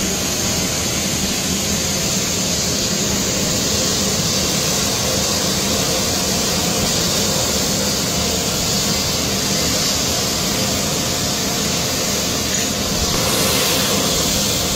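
Steady turbine noise from a parked C-17 Globemaster jet transport aircraft on the apron: an even rushing noise with a high hiss and a low hum.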